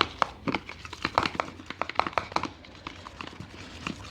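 A utensil stirring thick shampoo and salt in a bowl: quick, irregular clicks and sticky squelches, several a second, a little fainter in the second half.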